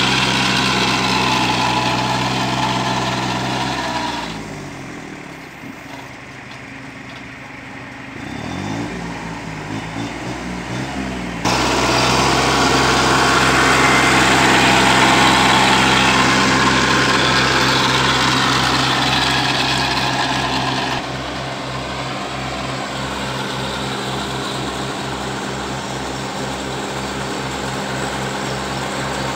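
Kubota 21 hp compact tractor's diesel engine running under load, driving a rotary weeder and ridger that churns soil between sugarcane rows. The engine slows and goes quieter about four seconds in, picks back up around ten seconds, and the sound jumps suddenly louder near twelve seconds and shifts to a pulsing low throb near twenty-one seconds.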